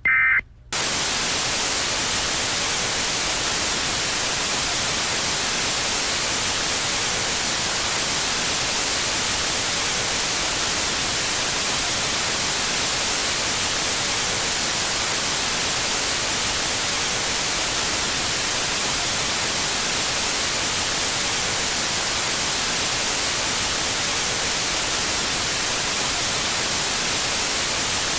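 A brief Emergency Alert System data-tone burst, the end-of-message signal, cuts off just after the start. Then a steady loud static hiss, even across all pitches, runs on unchanged.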